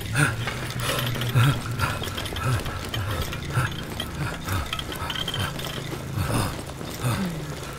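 Irregular clicking and rattling, like a small mechanism, over a low steady hum.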